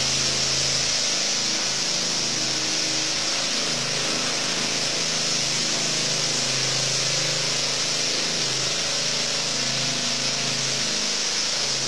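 Walk-behind power trowel running steadily, its small engine and rotating blades floating a fresh cement screed floor.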